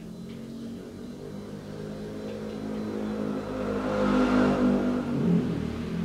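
A motor vehicle engine passing by: it grows louder to a peak about four seconds in, drops in pitch, then fades.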